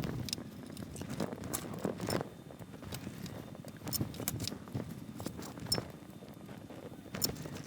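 Scattered light clicks and taps of hands and a soldering iron working on a circuit board, with low handling rumble, while header pins are soldered in.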